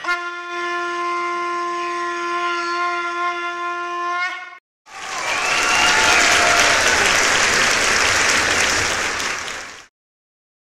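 A conch shell blown in one long, steady note that bends slightly upward as it ends after about four and a half seconds. After a brief gap comes about five seconds of loud applause and cheering, which cuts off.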